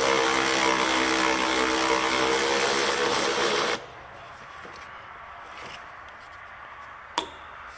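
Hercules cordless ratchet running steadily on a fan shroud bolt, its motor whining, then stopping suddenly about four seconds in. One sharp click follows near the end.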